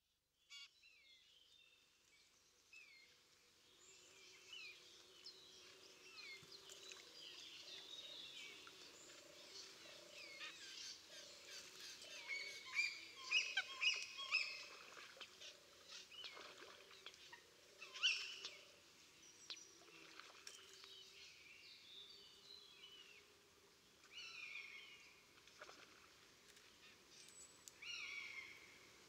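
Faint chorus of wild birds calling: many short high chirps and downward-sliding notes, busiest around the middle, over a lower wavering sound of more distant calls.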